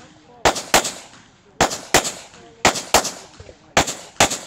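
CZ Shadow 2 9mm pistol fired in four quick double-taps, two shots about a third of a second apart, then a pause of about a second before the next pair.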